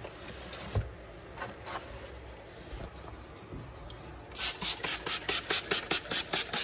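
Hand trigger spray bottle misting, squirted in a fast even run of about five hissing sprays a second that starts about four seconds in. Before that, light handling rustles and a single knock about a second in.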